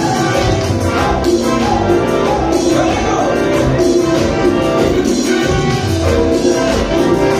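Live band music with singing, recorded from among the audience in a large hall.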